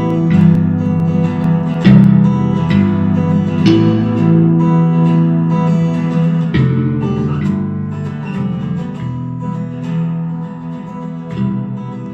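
Outro music: guitar strumming chords, slowly fading.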